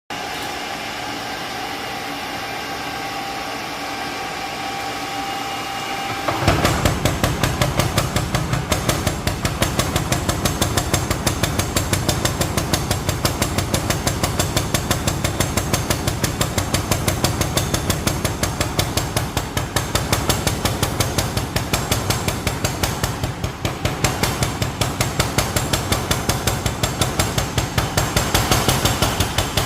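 Steady machine hum for about six seconds, then fast, even hammer blows of blacksmith forging as a hoe is shaped, about four a second without a break.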